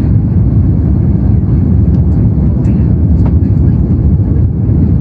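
Steady low rumble inside the cabin of an Airbus A330-300 on final approach: airflow and its Pratt & Whitney PW4168A engines, with a few faint ticks about halfway through.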